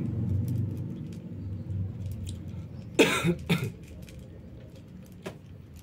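Kittens crunching dry kibble, a scatter of small crisp clicks throughout, under a low rumble that fades over the first couple of seconds. About three seconds in, two loud coughs come in quick succession.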